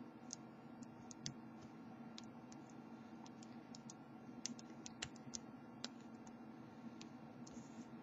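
Faint, irregular light clicks and ticks of a steel lock pick working the pin tumblers of a cheap 40 mm padlock held under light tension-wrench pressure, feeling for the binding pins.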